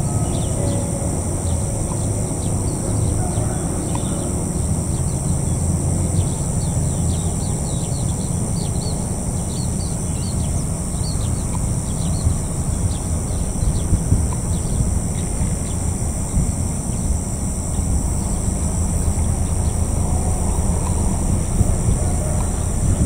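Birds chirping in quick short calls over a steady high-pitched insect drone, with a low rumble underneath. The chirps thin out after about thirteen seconds.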